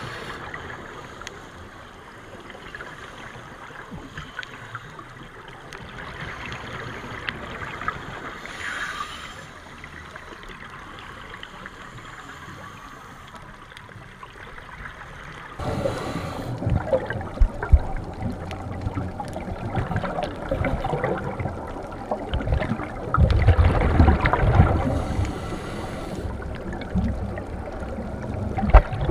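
Underwater sound of scuba divers breathing out through their regulators: rushing, gurgling bubble noise with crackles. It grows louder and fuller about halfway through, with a loud bubbly surge a few seconds before the end.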